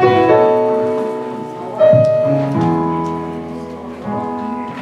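Piano-style keyboard playing slow, held chords, each struck and left to ring before the next.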